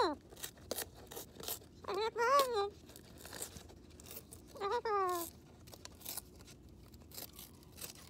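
Moluccan cockatoo chewing and tearing a cardboard box with its beak, a scatter of crunching, tearing clicks throughout. In between it mumbles short talking-like phrases: one ending just at the start, one about two seconds in and one about five seconds in.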